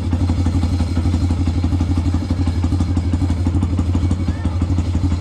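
Yamaha Exciter's single-cylinder four-stroke engine running steadily at idle through an aftermarket slip-on muffler, on a freshly fitted spark plug.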